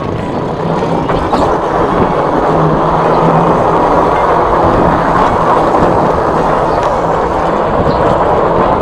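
Steady rolling noise of an e-bike riding along a rough concrete lane, with tyre rumble and wind rushing past.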